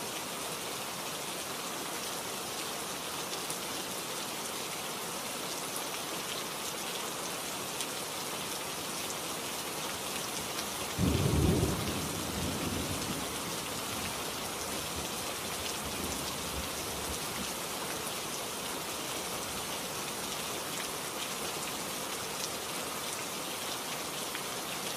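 Steady rain hiss, with one roll of thunder about eleven seconds in that rumbles loudest for about a second and then fades away over several seconds.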